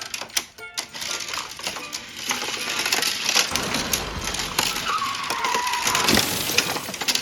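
Die-cast toy minicars clattering and knocking together in a staged crash, with a short squealing tone about five seconds in, over background music.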